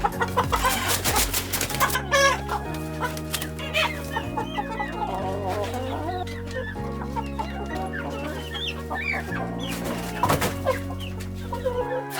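Chickens clucking, many short calls overlapping, over background music with steady chords that change about once a second.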